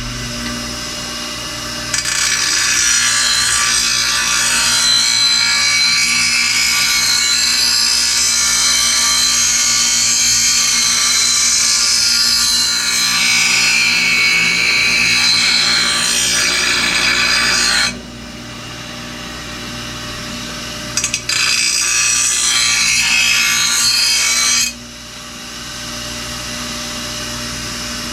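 Electric grinder sharpening the steel cutting blade of a lawnmower. The motor runs throughout, and the blade is held to the wheel in a long, loud grind from about 2 s to 18 s and again from about 21 s to 25 s, with the wheel spinning freely in between.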